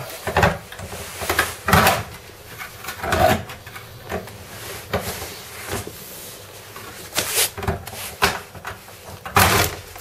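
String being worked around the rim of a Hotpoint Aquarius+ washing machine door and pulled to release the latch of a door whose handle is broken. Irregular rubbing, scraping and short knocks of string against the plastic door and handle, strongest about half a second, two seconds, three seconds and nine and a half seconds in.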